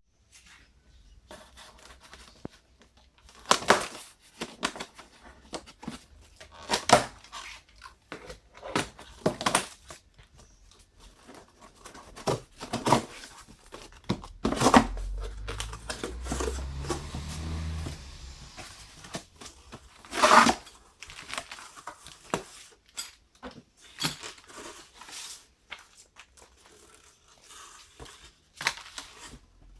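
Cardboard and plastic packaging being handled and opened by hand: tearing, crinkling and rustling, broken by sharp knocks and clicks, with a low rumble for a few seconds midway.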